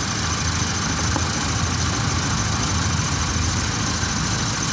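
Engine idling steadily, a continuous low hum, with a faint steady high-pitched tone above it.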